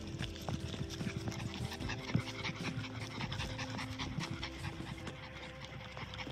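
A dog panting on a walk, with footsteps on dry dirt and grass.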